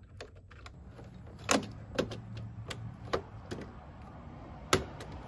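Hands working wires and parts inside an Eaton CH metal breaker panel: irregular sharp clicks and knocks, four of them louder than the rest, over a low steady hum.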